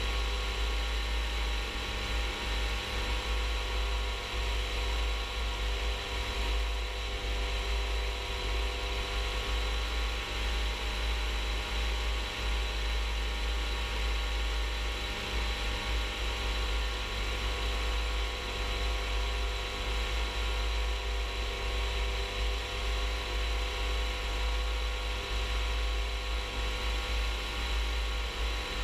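Rans S-14 light aircraft's engine and propeller running steadily in cruise flight, a constant drone with even overtones and a hiss. A deep fluctuating rumble of wind buffets the microphone throughout.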